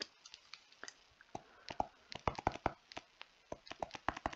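Stylus clicking and tapping on a pen tablet as figures are handwritten: a run of short, irregular clicks, sparse at first and coming thicker from about a second and a half in.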